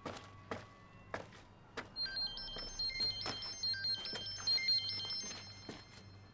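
A mobile phone ringing with an electronic melody ringtone of stepping high notes. It starts about two seconds in and stops after about three and a half seconds.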